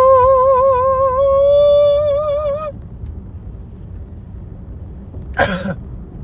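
A man singing one long high note with a wavering vibrato, over the steady road rumble of a moving car's cabin; the note stops a little under three seconds in. About five seconds in comes a short harsh vocal sound that falls in pitch.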